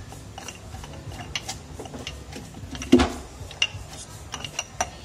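Muddler pounding lime wedges and mint leaves in a glass tumbler: irregular knocks and clinks against the bottom of the glass, the loudest about three seconds in.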